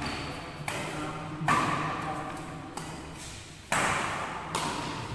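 Badminton rackets striking the shuttlecock during a rally. There are several sharp hits, the loudest about one and a half seconds in and just before four seconds in, each with a short echo from the hall.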